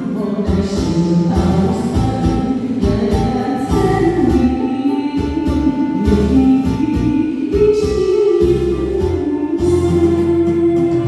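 Pop song playing: singing over a backing track with a steady beat.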